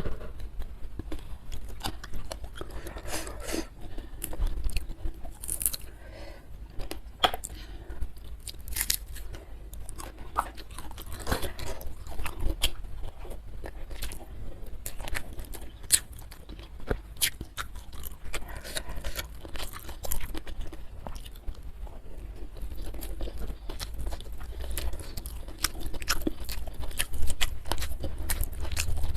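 Close-miked chewing and crunching of food in the mouth, with many irregular crisp crunches.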